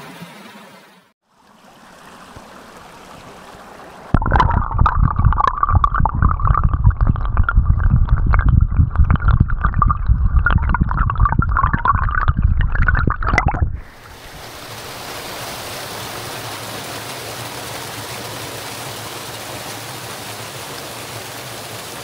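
Forest brook recorded with the camera held underwater: loud deep gurgling and rumbling full of small knocks for about ten seconds. Then, above the water, a small cascade of the brook rushing steadily over rocks.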